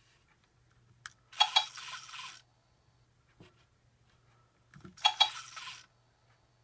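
Black I-Cat robotic toy giving two short electronic sounds from its speaker, each about a second long and each just after a press on its head. A faint low hum runs underneath.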